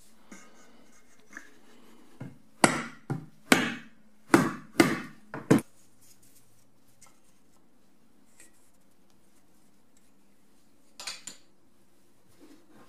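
Small hammer tapping wooden pieces into the end of a tape-wrapped wooden axe handle: a run of about eight sharp knocks over a few seconds, then two more in quick succession later.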